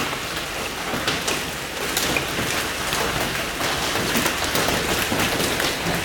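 Hail and rain beating on a motorhome and the wet pavement: a dense, steady clatter dotted with many sharper single hits.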